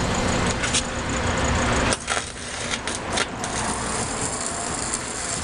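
Arc welding on a steel exhaust pipe: a steady crackling hiss that stops about two seconds in, followed by a few sharp metallic clicks.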